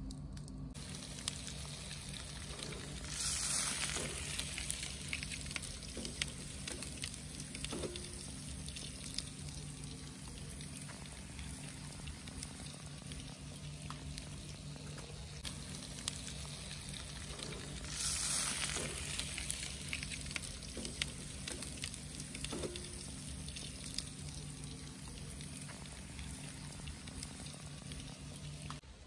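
Foil-wrapped shad sizzling on a braai grid over glowing coals, a steady hiss with light crackling that swells louder twice.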